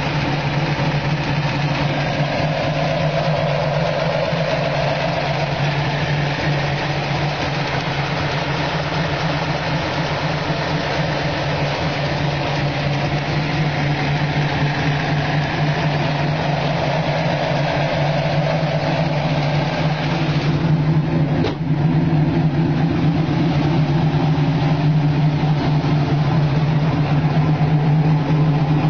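V8 engine of a 1967 Ford Mustang GT Fastback idling steadily. About two-thirds of the way through the tone shifts with a short click, and it runs a little louder after.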